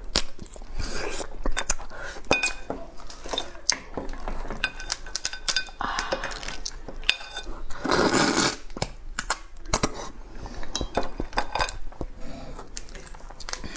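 Close-up eating of a crab: crab shell and legs crackling and clicking as they are pulled apart and bitten, with two longer noisy stretches of sucking at the crab meat, about six and eight seconds in.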